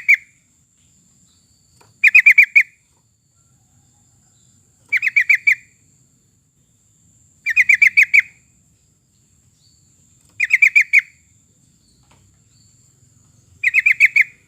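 Yellow-vented bulbul (trucukan) singing, repeating a short bubbly phrase of five or six quick notes about every two and a half to three seconds. A faint steady high whine runs underneath.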